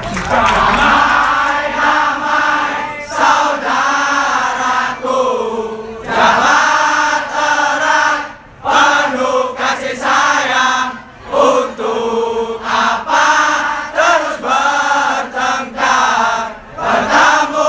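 A crowd of Arema FC football supporters chanting together in unison, line after line, with brief pauses between phrases.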